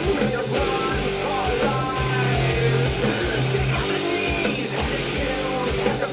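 Rock music with singing and guitar, played back through a pair of small studio monitor speakers and picked up by a handheld recorder's microphone in the room.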